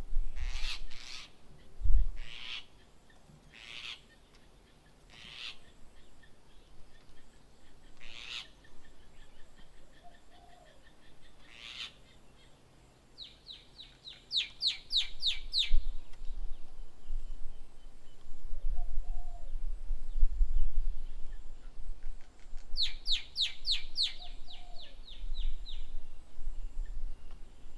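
Wild birds calling: a series of short, sharp calls spaced a second or two apart, then twice a fast run of clear, ringing notes. A fainter, lower call repeats a few times behind them.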